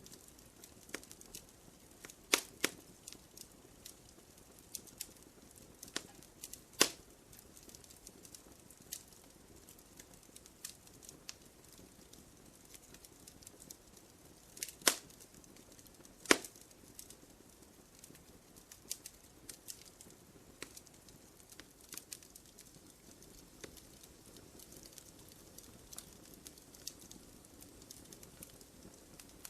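Wood fire crackling in a fireplace: irregular sharp pops and snaps, a few louder ones, over a faint steady hiss.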